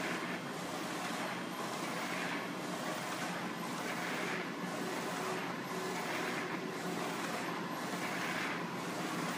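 Direct-to-garment inkjet printer running as it prints onto a T-shirt: a steady mechanical whirr that swells about once a second with each back-and-forth pass of the print head.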